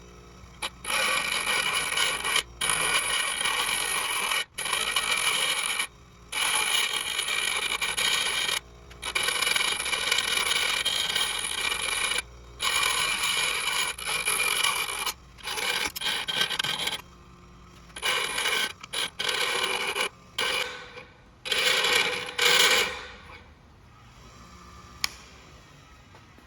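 Electric arc welding on the sway bar link in about a dozen bursts of one to three seconds each, each starting and stopping abruptly. This is the weld being laid or tacked on.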